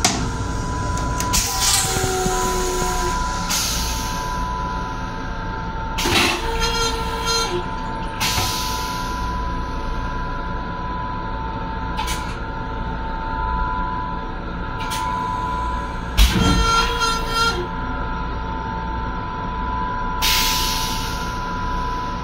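Steady hum and rumble of a Long Island Rail Road M7 electric railcar, heard from inside its small restroom. Several short hisses come over it, the two longest about six seconds in and about sixteen seconds in, the second starting with a sharp knock.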